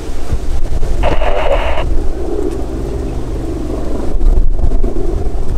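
Mi-24 Hind helicopter flying overhead: its rotor and twin turboshaft engines make a heavy, steady rumble, mixed with wind on the microphone. A brief burst of noise cuts in about a second in and stops just short of two seconds.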